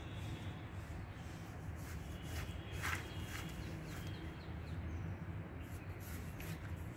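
Quiet outdoor ambience: a steady low rumble with a few faint bird chirps, mostly in the middle, and a few short scratches of a drawing stick on paper.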